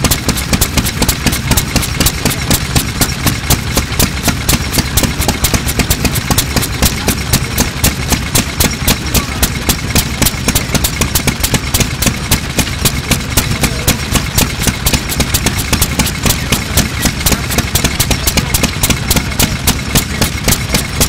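Circa-1925 Yoshida 1.5 hp single-cylinder petroleum (kerosene) stationary engine running steadily, its exhaust beating in a fast, even rhythm of several beats a second.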